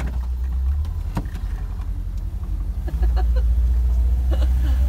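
1984 VW Westfalia camper van driving, heard from inside the cab: a steady low engine and road rumble that gets louder about three seconds in, with a few faint clicks over it.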